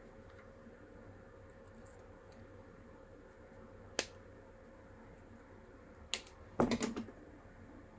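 Flush cutters snipping the wire leg of a Ni80 coil: one sharp click about four seconds in, another about two seconds later, followed by a brief clatter.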